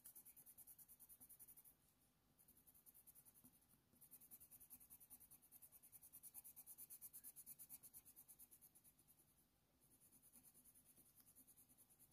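Faber-Castell Polychromos coloured pencil scratching faintly across hot-press watercolour paper in quick, short fur strokes, several a second. The strokes come in three runs with brief pauses between them.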